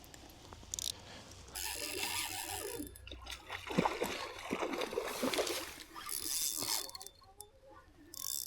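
A hooked rainbow trout splashing and thrashing at the water's surface during the fight, in several irregular bursts, the loudest around the middle.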